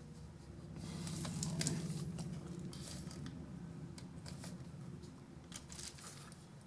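Handling noises: light rustling, rubbing and a few small clicks as the kit's parts are picked up and moved, with a low rumble that swells about a second in.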